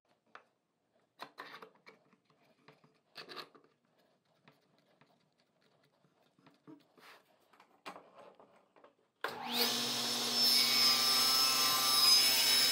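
Faint clicks and knocks of clamps and wood being handled on a table saw sled, then about nine seconds in the table saw is switched on: its motor spins up with a quickly rising whine and settles into a loud steady run.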